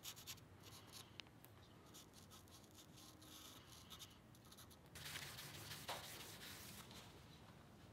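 Faint scratching and dabbing of a black paint marker's tip on a bronze nut, then about five seconds in a cloth rubbing across the metal for a couple of seconds.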